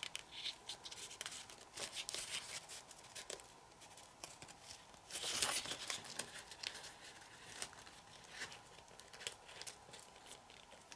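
Sheet of white printer paper being pinched and creased between fingertips in an origami fold: faint crinkling and rustling with small clicks, and a louder rustle about five seconds in.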